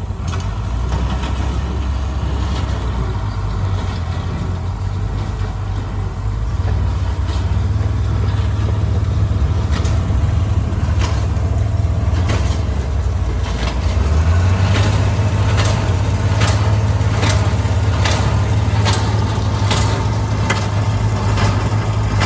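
Tractor engine running steadily, then picking up speed about two-thirds of the way through. From then on a square baler's plunger knocks in a steady rhythm, about three strokes every two seconds, as it packs hay into bales.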